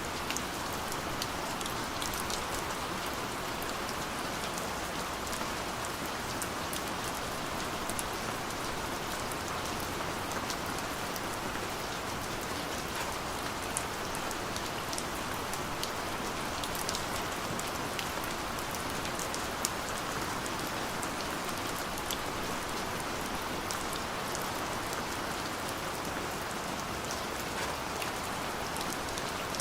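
Steady light rain falling, an even hiss with many small scattered drop ticks and no thunder.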